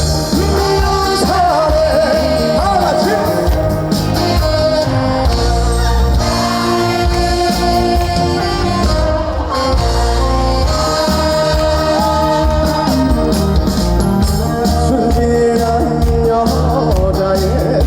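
Live trot song played loud by a band with singing over it, a steady beat and bass under a bending melody line.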